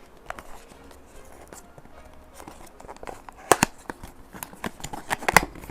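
A small cardboard blind box and its packaging being handled and opened by hand: scattered light taps, clicks and rustles, sparse at first, with louder sharp clicks from about three and a half seconds in.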